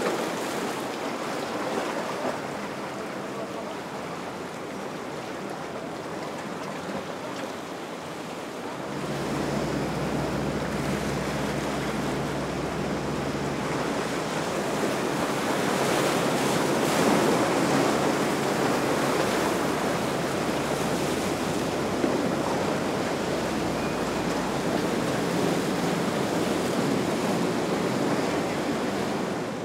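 Ocean waves and surf rushing, with wind buffeting the microphone. About nine seconds in, a boat engine's low steady hum joins, getting louder and then fading after several seconds.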